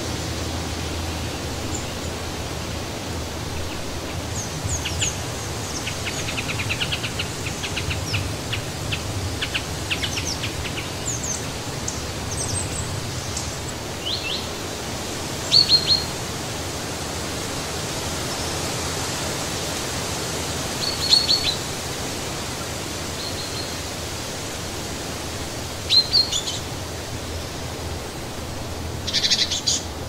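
Steady rushing of wind through tree foliage, with small birds chirping over it: a fast run of high chirps between about five and ten seconds in, then short, sharp chirps every few seconds, the loudest about halfway through.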